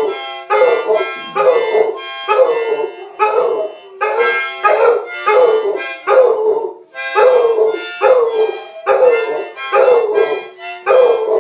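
A harmonica playing chords while a dog howls along, in repeated falling howls about two a second.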